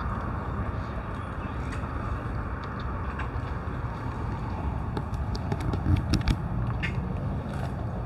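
Wind buffeting the microphone in a steady rumble, with a few short clicks and two louder thumps about six seconds in.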